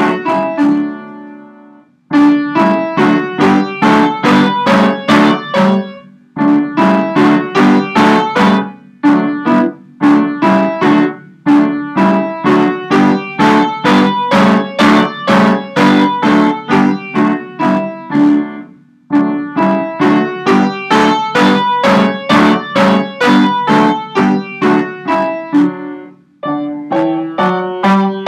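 Upright piano playing D major scale runs: evenly spaced single notes at about three to four a second, in runs of a few seconds each with brief pauses between them.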